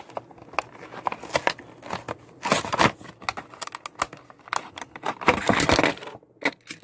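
A die-cast toy car's blister packaging, clear plastic on a card backing, being pried open by hand: a run of crinkling, crackling and tearing, with two longer tearing rustles about two and a half and five seconds in.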